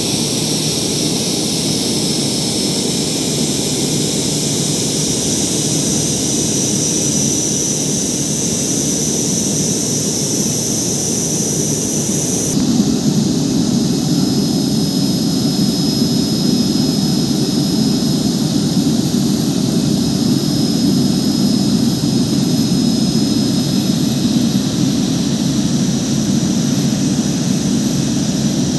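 Boeing 787 Dreamliner's jet engines at taxi power as the airliner rolls past close by: a steady high whine over a low rumble. About halfway through, the sound changes abruptly to a louder, deeper rumble with a slightly lower whine.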